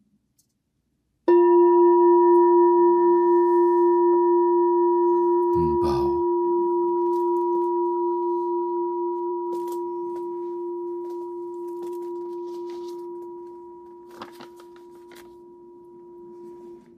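A meditation bell is struck once, about a second in, and rings on with a long, slowly fading tone that wavers in loudness, marking the close of a silent meditation.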